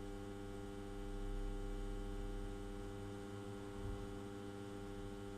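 Steady electrical mains hum with a dense stack of even overtones, from the mains-powered PWM lamp-control test rig as its input is raised toward 220 V.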